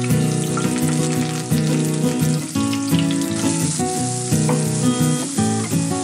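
Hot cooking oil sizzling in a frying pan as curry leaves and then chopped onion go in, under background music with a plucked melody.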